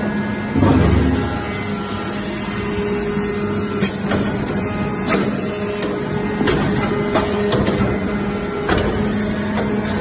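Hydraulic copper-chip briquetting press running: a steady hum from its hydraulic power unit, with irregular sharp clicks and knocks and a heavier low surge about a second in.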